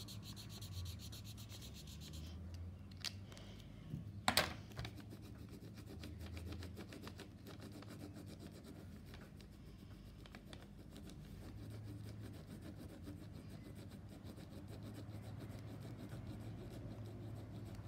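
Marker tips scratching back and forth across paper in quick, steady colouring strokes, with a couple of sharp clicks about three and four seconds in.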